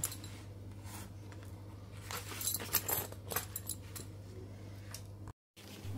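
Light handling noises as a leather sandal and its insole are moved about: small clicks and scratchy rustles with a faint jingle of the sandal's metal buckle, mostly in the middle, over a steady low hum.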